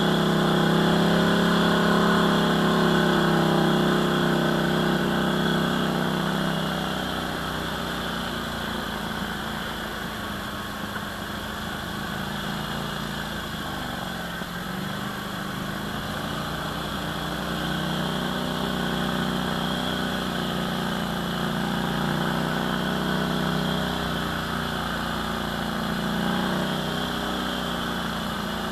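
ATV engine running under way, steady and strong for the first several seconds, easing off and wavering in pitch around the middle, then pulling steadily again.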